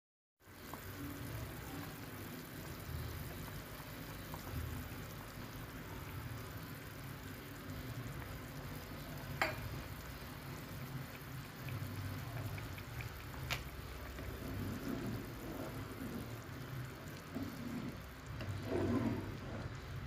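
Kitchen cooking sounds: a steady hiss over a low rumble, with two sharp clicks about nine and a half and thirteen and a half seconds in, and some clattering near the end.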